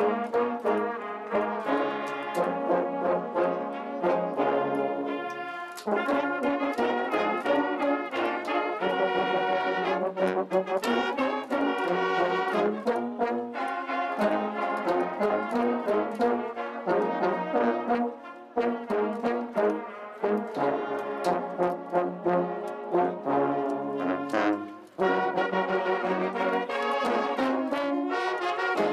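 Brass band of euphoniums, baritone horns and sousaphones playing a tune together in rhythmic phrases, with brief breaks between phrases about 6, 18 and 25 seconds in.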